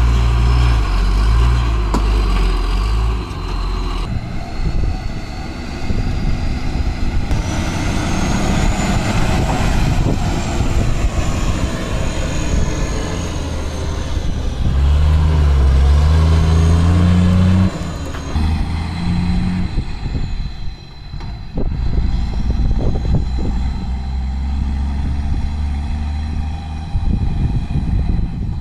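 Diesel engine of a loaded Tata tipper truck running as the truck drives off, with the revs rising in steps about midway.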